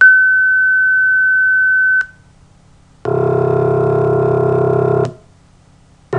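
A single pure sine tone, high and steady, sounds for about two seconds: the newly sampled 41st partial of a piano's low C1 note. After a second's pause comes a two-second low, buzzy synthesized tone made by adding 41 pure tones together to imitate the piano's C1, and a second such low tone begins just before the end.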